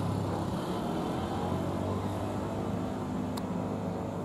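Steady low mechanical hum with a noisy outdoor rumble, like a vehicle or machine running at a constant speed.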